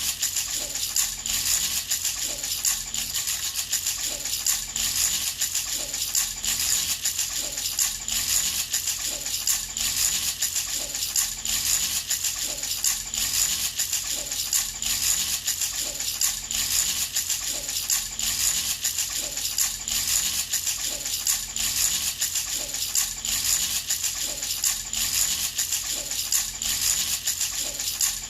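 Handheld baby rattle shaken continuously in a steady, regular rhythm, its loose beads rattling.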